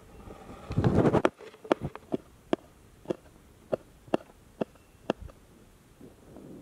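Kitchen knife chopping green chillies on a wooden board: a sharp tap with each cut, about two a second at an uneven pace, stopping shortly before the end. About a second in there is a louder burst of noise.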